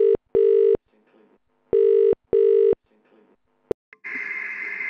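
Telephone ringing tone in a double-ring pattern: two pairs of short, steady low tones. About three and three-quarter seconds in comes a sharp click, as of the line being picked up, and then a steady hiss of an open phone line.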